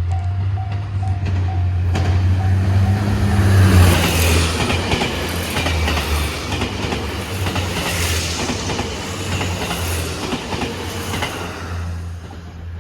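A JR HC85 series hybrid diesel train passes at speed, its engine humming low while the wheels clatter rhythmically over the rail joints. It is loudest about four seconds in and fades near the end. In the first two seconds the level crossing's warning bell is heard dinging in steady pulses before the train drowns it out.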